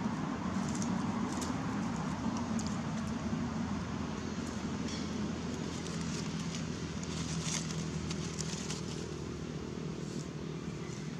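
Outdoor background noise: a steady low rumble and hum with scattered faint, short crackles.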